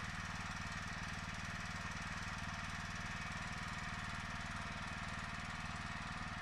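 Dual-fuel portable generator's engine running steadily at constant speed on gasoline, during its break-in run.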